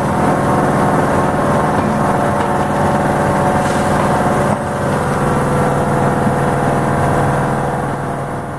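Electromechanical vibratory feeder running, its two rotary electric vibrators at 1200 RPM shaking the tray deck, with a load of loose fasteners rattling and clattering across the deck and spilling off the end into a plastic bucket. The sound is loud and steady and fades out near the end.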